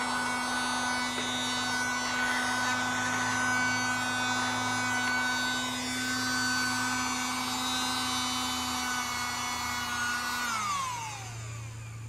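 Tiny USB-powered handheld vacuum's motor running with a steady whine, then switched off near the end, its pitch falling as it spins down.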